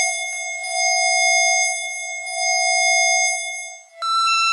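Emergency broadcast attention tone: a steady, buzzy electronic tone that swells and dips in loudness every second or two. It cuts off about four seconds in and a higher tone takes over.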